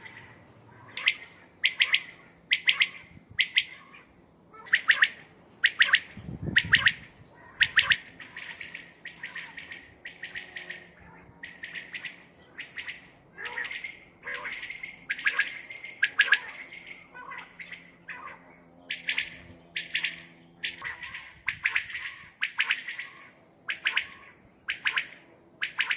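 Common quail calling: a long run of short, sharp calls repeated about once or twice a second, with a brief pause about eighteen seconds in.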